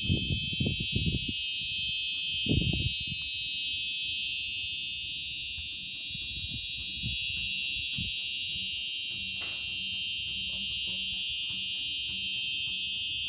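Fire alarm sounding a continuous high-pitched electronic tone: the Simplex 4100U system in alarm after two smoke detectors have activated, the condition set to release the Tungus extinguisher. A few low thumps come in the first three seconds.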